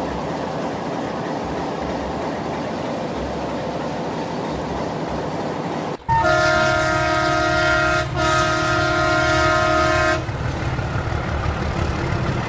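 A locomotive air horn blows two long blasts, each about two seconds, with a brief gap between them. Under and around them runs a steady train rumble.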